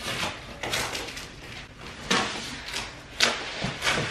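Packing tape on a large cardboard box being scraped and torn open, a series of short scratching, ripping strokes against the cardboard.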